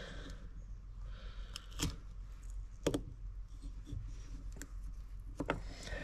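Hands working the fuel-pump cover of a snowmobile carburetor loose, giving a handful of light clicks and taps of metal parts, spread out, over a low steady hum.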